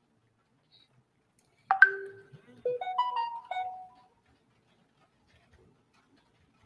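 Short electronic phone chime: a struck tone and then a quick run of about five bell-like notes, lasting about two seconds and starting about a second and a half in.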